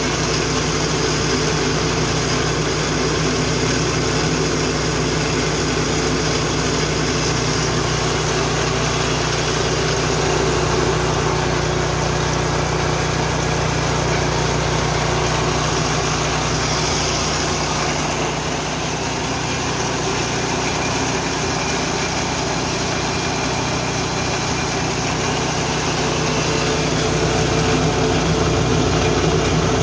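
Rice and corn mill running steadily, driven by its small 7 HP petrol engine. The level rises slightly near the end.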